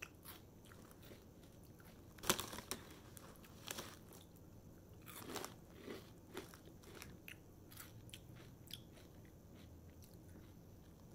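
A person chewing crunchy corn-and-rice snack crisps close up, with irregular crisp crunches; the loudest crunch comes about two seconds in.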